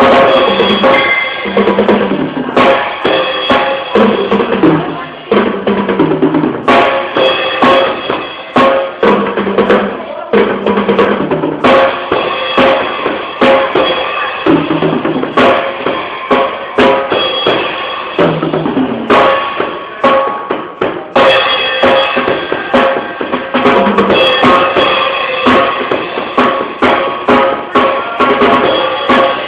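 Drum kit being played loosely and unevenly, with frequent bass drum and snare hits and cymbal crashes.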